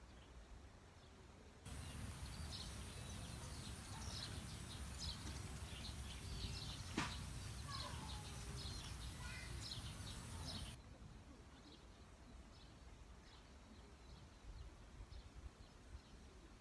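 Faint outdoor ambience: scattered short, high bird chirps over a steady low rumble of noise that starts about two seconds in and stops abruptly near eleven seconds, with one sharp click about seven seconds in.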